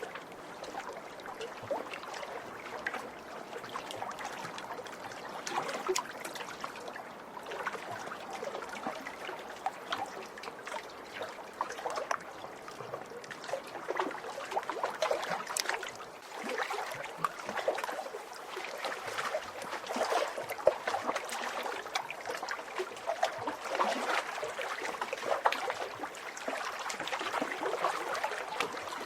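Small waves lapping and splashing against a lake shore: a continuous irregular slosh with many small sharp splashes, swelling and easing every few seconds.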